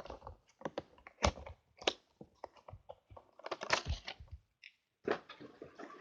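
A makeup palette and its plastic packaging being handled and unwrapped: irregular clicks and crackles, with longer crinkling stretches past the middle and near the end.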